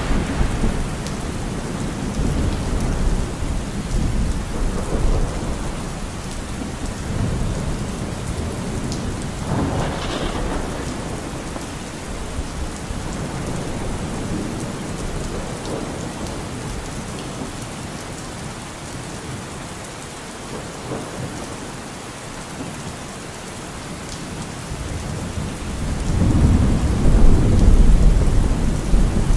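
Steady rain with rolling thunder: low rumbles swell and fade, the loudest one near the end.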